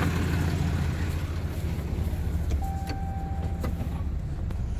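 Ram 2500's 6.7-litre Cummins turbo-diesel idling with a steady low rumble. A few light clicks, then a steady electronic chime tone lasting about a second begins a little past halfway.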